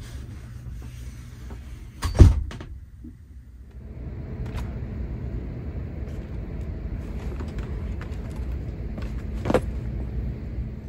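A sharp, loud thump about two seconds in, then a steady low rumble of outdoor noise, with a second, smaller knock near the end.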